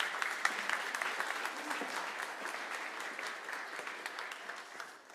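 Audience applauding: many hands clapping in a dense patter that slowly dies away and stops near the end.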